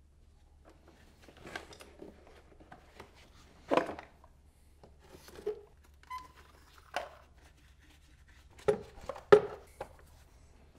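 Plastic clicks and knocks from a BMW E38 750iL's air filter housing being unclipped and opened by hand, and its paper air filter element being lifted out. Scattered single knocks, the loudest two close together near the end.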